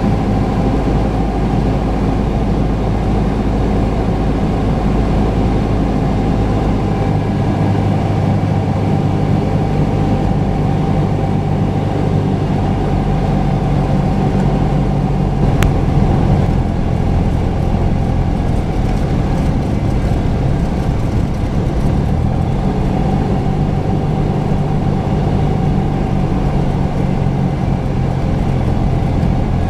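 Cessna 172's piston engine and propeller running with a steady drone in cruise and approach. The tone shifts slightly about halfway through, where a single brief click is also heard.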